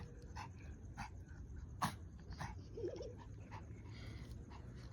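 Pomeranian whining briefly about three seconds in, over scattered short clicks and a steady low rumble.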